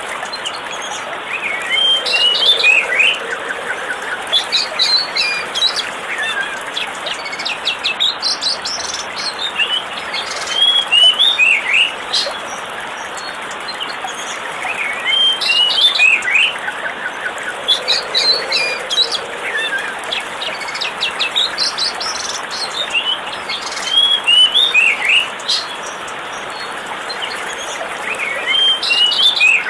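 Birds chirping in short, quick phrases of rising and falling notes, over a steady rush of falling water.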